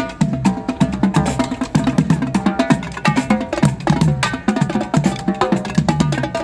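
Marching drumline playing live: a tenor drum set and a marching drum beat out a fast, busy cadence of sharp stick strikes on drums of several pitches.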